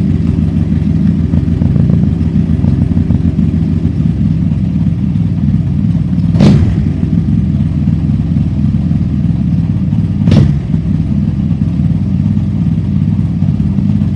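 Rusi Mojo 200 motorcycle engine idling steadily while its slightly high idle is being turned down. Two short sharp sounds stand out, about six and about ten seconds in.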